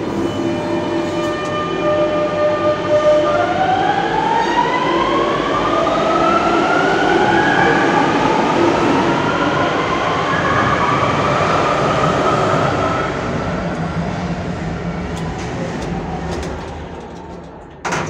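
Electric train pulling out of the station: a steady electric hum, then from about four seconds in the traction motors' whine climbs in pitch over several seconds as the train speeds up. The train's sound then fades away as it leaves.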